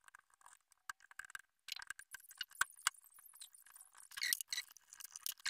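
Soldering iron and copper desoldering braid on circuit-board pads: faint, irregular crackling and ticking as the flux sizzles and the wick soaks up solder, with louder crackles around four seconds in.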